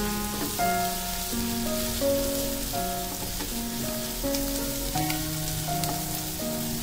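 Vegetables and scrambled egg frying with a soft sizzle in a non-stick kadai while a silicone spatula stirs them. Background music plays over it, a simple melody of held notes.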